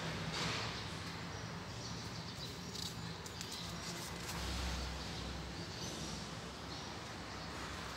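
Pages of a paperback book being flipped by hand, paper rustling and flicking, with a low thump of the book being handled about halfway through over a faint low hum.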